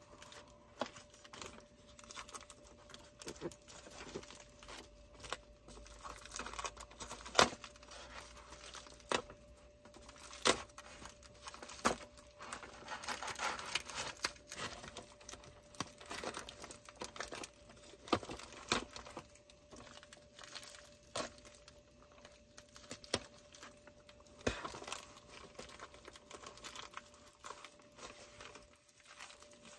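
Plastic packaging being torn open and crinkled by hand: irregular rustles and crackles with a few louder snaps.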